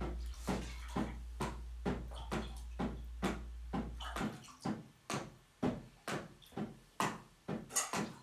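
Improvised noise-music percussion: sharp knocking hits in a steady rhythm, about two to three a second, over a low hum that cuts off about four seconds in.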